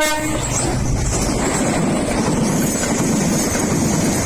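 Train running past close by: a loud, steady rail rumble with wheel clatter that swells in the first second and holds. A short steady tone sounds right at the start.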